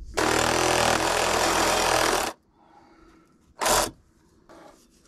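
Cordless power saw cutting PVC drain pipe to shorten it: a loud cut of about two seconds that stops suddenly, then a second brief burst of cutting about a second and a half later.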